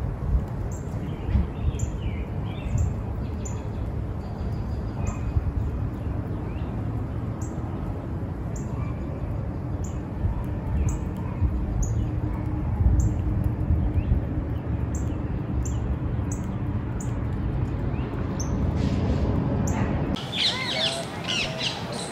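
Outdoor ambience of wild birds calling over a steady low rumble. A short high chip repeats roughly once a second, with occasional other calls. Near the end the rumble stops and busier birdsong takes over.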